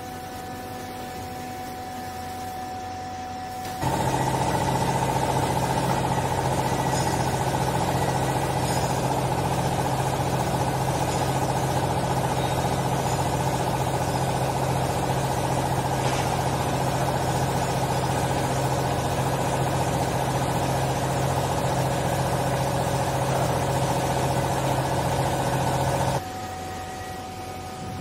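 Vertical hydraulic baler's power pack, an electric motor driving the hydraulic pump, running with a loud, steady hum while the press plate compresses a load of used clothes. It starts abruptly about four seconds in and cuts off suddenly near the end, leaving a fainter steady hum.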